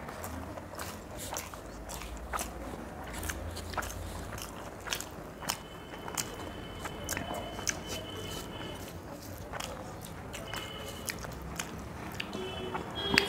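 Close-miked eating sounds: two people chewing mouthfuls of rice and spicy chicken kasha eaten by hand, with many small wet clicks and smacks throughout.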